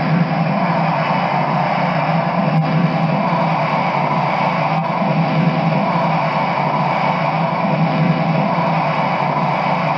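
Turbine sound effect: a steady jet-like rushing whine that holds at one level, with a low hum underneath.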